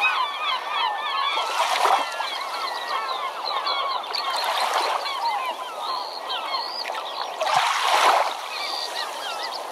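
A large flock of birds calling together in a dense chattering chorus. Three times the chorus is overlaid by a rushing wash of noise like surf breaking.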